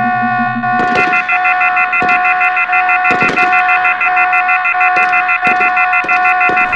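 Steady electronic alarm-like tone, several high pitches sounding together, with a faster pulsing beep layered over it from about a second in and scattered sharp clicks.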